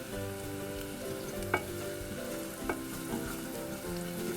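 Tadka sizzling in hot oil: mustard and cumin seeds, curry leaves, asafoetida, turmeric and red chili powder frying while being stirred, with a couple of spoon clicks against the pan.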